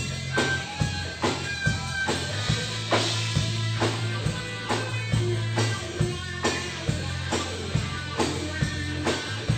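Live rock band playing: drum kit keeping a steady beat of about two hits a second, under electric bass and electric guitar.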